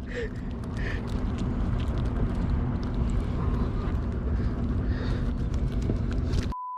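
Boat engine running steadily, a low rumble with a steady hum. Near the end it cuts abruptly to a short, steady, pure beep.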